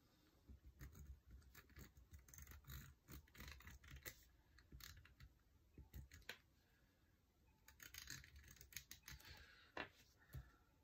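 Faint scraping and small clicks of a handheld tape roller being run along planner paper to lay tape over a printed line, with light paper rustling.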